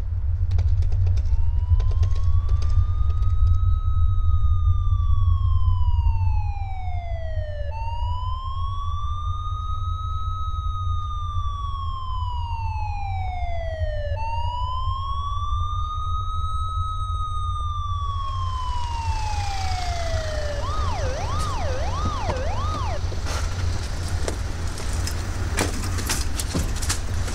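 Emergency vehicle siren wailing in three slow rises and falls of about six seconds each, then switching briefly to a fast yelp, over a steady low rumble. A hiss and scattered clicks join in near the end.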